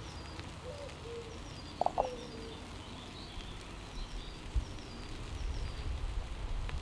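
Garden birds calling and chirping faintly, with a few short calls near the start. A low rumble builds over the last couple of seconds.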